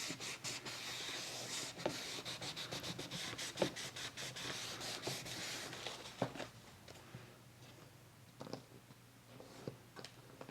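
Rapid rubbing and scratching strokes on paper for about six seconds, then quieter, with a few light taps and paper rustles.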